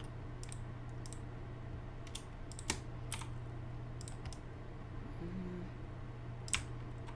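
Computer keyboard keystrokes and clicks at irregular intervals as Blender shortcuts are entered, about a dozen sharp taps with the loudest a little before the middle, over a steady low hum.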